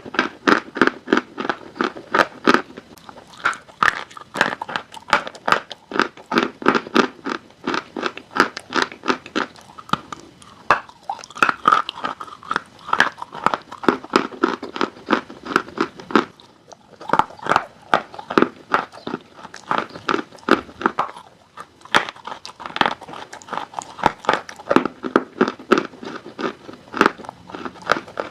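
Close-up chewing of dry chalk: quick runs of crisp crunches, several a second, with brief pauses between mouthfuls.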